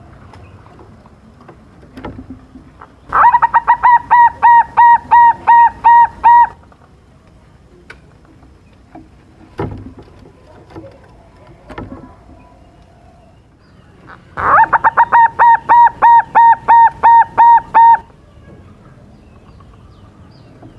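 Silver-coloured zebra dove (perkutut) singing: two loud bouts of rapid, evenly repeated staccato coos, each lasting about three seconds, the first about three seconds in and the second about fourteen seconds in. A few soft knocks come between the bouts.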